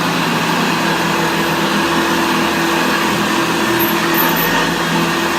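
1975 Hoover Senior Ranger U4002 upright vacuum cleaner running steadily, its motor hum and spinning beater bar plainly heard.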